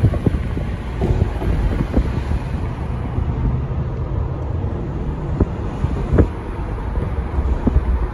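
Mercedes car driving, heard from inside: a steady low rumble of engine and road noise, with a few short knocks scattered through it.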